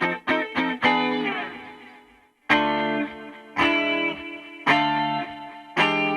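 A guitar recording played back through a compressor plugin under test. Quick picked notes, then a chord left to ring out and fade, a short gap, three held chords about a second apart, and the quick picking returning near the end.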